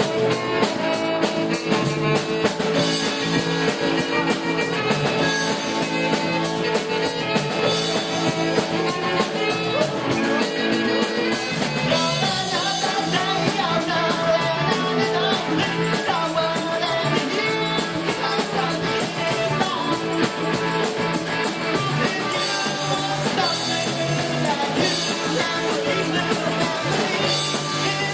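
Live rock band playing a song: electric guitar and drum kit with a singing voice, at a steady beat.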